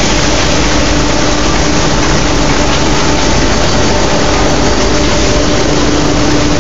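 Machinery running steadily: a loud, even drone with a constant hum, and no punching strokes.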